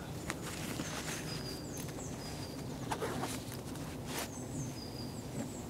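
Rustling and soft clicks of kit being handled in a rucksack, with small birds giving short high whistles, some falling in pitch, near the end.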